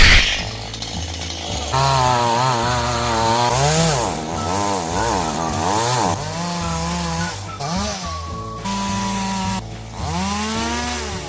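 Chainsaw cutting firewood, its engine pitch rising and falling over and over as it revs and bogs down in the cut, over background music. A loud knock right at the start.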